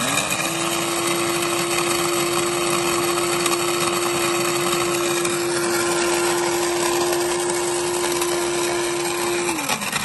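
Electric blade spice grinder running steadily, grinding roasted almonds, dried red chillies and poppy seeds into powder. The motor spins up at the start and its hum drops as it is switched off near the end.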